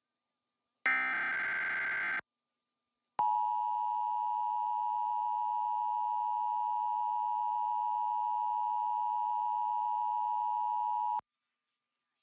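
Emergency Alert System test signal: a buzzing burst of SAME header data about a second in, lasting just over a second. About a second later comes the two-tone EAS attention signal, held steady for about eight seconds, then cut off suddenly.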